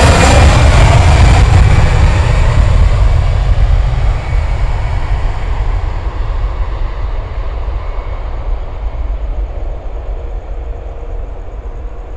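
Airbus A321's CFM56 jet engines at takeoff power: a loud, broad roar that fades steadily as the airliner moves away down the runway.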